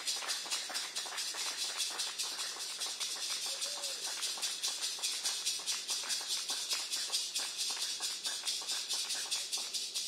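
Rainforest insects buzzing in a steady, high-pitched chorus that pulses about five times a second.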